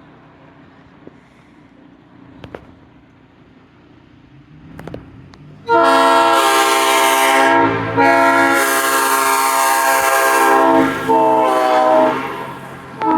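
Multi-chime locomotive air horn sounding a loud steady chord in three blasts, two long and one short, the last trailing off. It begins about halfway through after faint background with a few clicks, and another blast starts at the very end.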